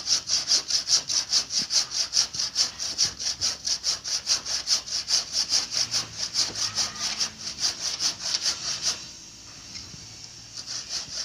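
Hand saw cutting through a fallen bamboo culm in fast, even back-and-forth strokes. The sawing stops about nine seconds in and starts again near the end.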